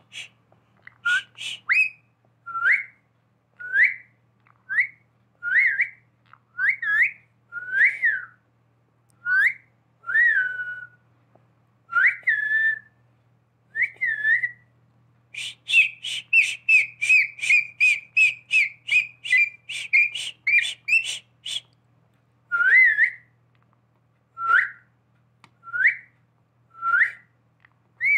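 Pet rose-ringed parakeet whistling: a string of short rising whistle notes about a second apart, broken about halfway through by a fast run of rapid repeated notes lasting several seconds.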